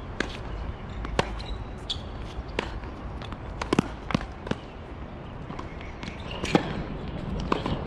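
Tennis balls being struck and bouncing on a hard court: scattered sharp pops at uneven intervals, bunched in a quick run about the middle and again near the end, over a low steady rumble.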